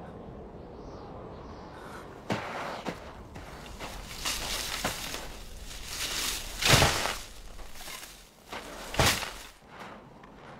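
Branches and snow rustling and crunching as leafy branches are laid over a hole in the snow. It comes with several sharp swishes and knocks, the loudest about seven seconds in and another about nine seconds in.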